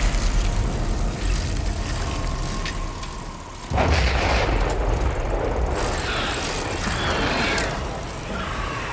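Loud, deep rumbling film sound effects with a dense, noisy texture. The sound cuts off abruptly about three and a half seconds in and a fresh rumble starts straight away.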